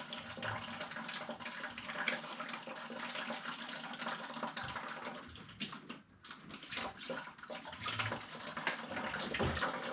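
Water running and splashing from opened copper plumbing, with irregular small clicks and knocks from handling the pipe.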